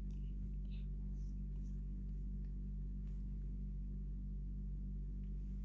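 Steady low electrical hum with a stack of overtones, unchanging throughout, with a few faint ticks over it.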